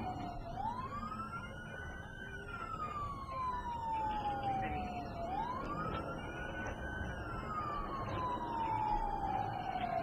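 Police car siren on its wail setting: the pitch climbs quickly, then sinks slowly over several seconds, making two full sweeps. Steady road noise runs underneath.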